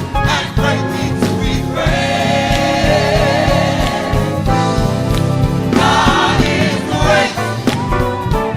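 Gospel choir singing with band accompaniment and steady drum hits. The choir holds two long chords with a wavering tone, the first about two seconds in and the second near the end.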